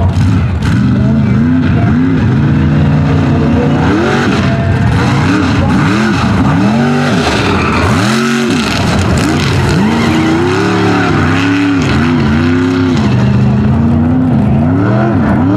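Mega truck engine revving hard on a dirt track, its pitch rising and falling again and again as the throttle is worked, with one deep dip about halfway through.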